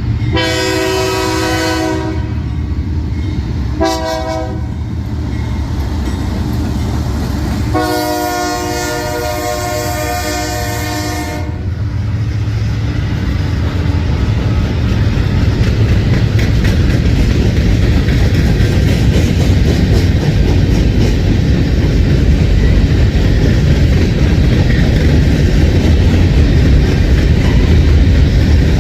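Freight locomotive's Nathan K3LA three-chime air horn sounding a horn salute: a long blast, a short one, then a longer one of about three and a half seconds. After the horn, freight cars roll by with a steady clatter of wheels on rail joints that grows louder.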